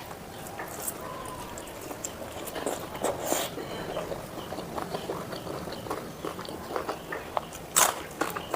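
A person chewing and eating pork curry close to the microphone: irregular wet mouth clicks and smacks, with louder sharp strokes about three seconds in and again near the end.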